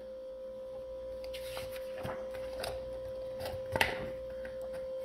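The paper page of a picture book being turned by hand: soft rustles and crinkles, the loudest a little under four seconds in. A steady humming tone runs under it throughout.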